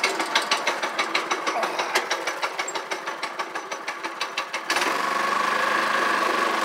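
Go-kart's small single-cylinder engine idling with an even putt. About two-thirds of the way through it picks up to a louder, steadier run as the kart pulls away across the grass.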